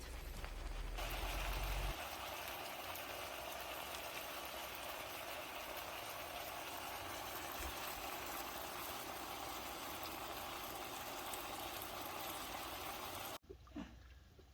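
Steady sizzling hiss of pork ribs frying on a hot grill, with a low rumble in the first two seconds; it cuts off abruptly near the end.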